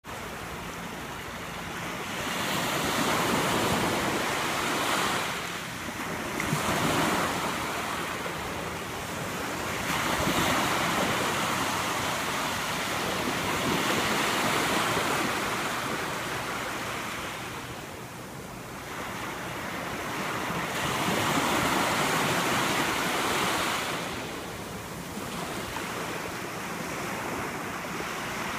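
Small surf, waves of about 6 to 8 inches, breaking and washing up the shore. The wash swells and eases every few seconds.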